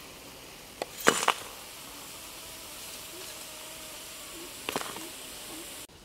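Pieces of charcoal being set on the metal lid of a dough-sealed biryani pot: a short cluster of sharp clinks about a second in, the loudest sound, and a few more near five seconds, over a steady hiss.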